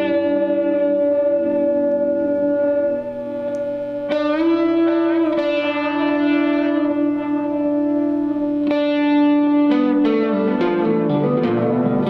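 Electric guitar chords played through an Electro-Harmonix Grand Canyon delay in echo mode, its filter driven step by step by an 8-Step Program sequencer. The chords are left to ring, with a new chord struck a few times and busier playing near the end.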